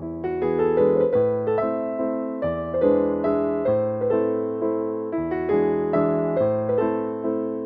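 Background piano music: a steady run of notes over changing low bass notes.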